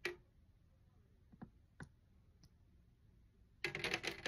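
Boiled egg slick with baby oil being squeezed and worked in the hand, giving faint, scattered wet clicks, then a quick run of them near the end.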